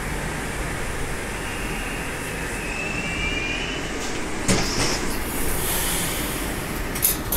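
Inside an 81-765 Moscow Metro car standing at a platform: a steady hum and hiss with a faint thin whine for about a second. About four and a half seconds in, the car's sliding doors open with a clatter, and a short click follows near the end.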